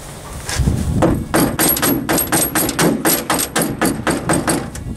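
Screwdriver tip scraping paint out of a clip hole in a steel car door panel, in a fast, even run of about six or seven strokes a second, after a low thump about a second in. The paint in the hole stops the lever-arm retaining clip from pushing in.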